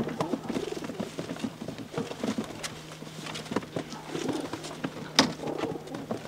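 Domestic pigeons cooing throughout, over scattered knocks and clicks from a wooden pigeon crate being handled as a bird is taken out. The sharpest click comes a little after five seconds in.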